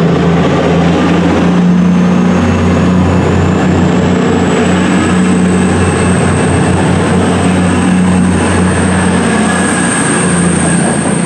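Diesel passenger train running close by, a steady, loud low engine drone with a thin high whine that slowly rises in pitch.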